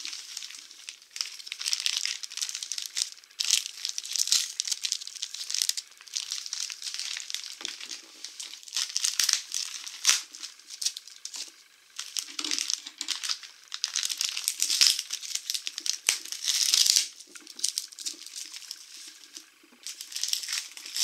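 Clear plastic wrapping and bags crinkling and rustling in irregular bursts as hands handle and open them, with a few sharp clicks.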